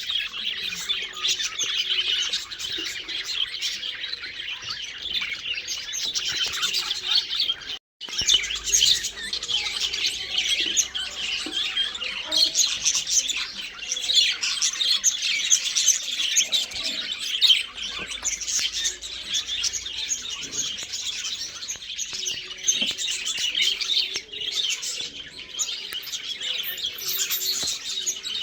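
A flock of budgerigars chattering and chirping continuously, many birds at once, with a brief break about eight seconds in.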